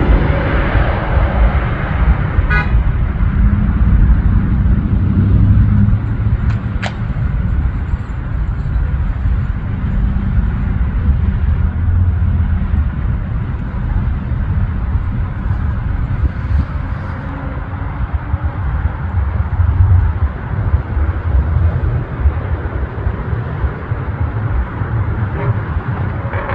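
Aircraft engine noise from a landing plane: a steady low drone for the first few seconds that gives way to a continuous rough low rumble.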